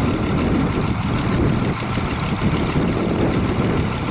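New Holland 8160 tractor's diesel engine running steadily, a low rumble.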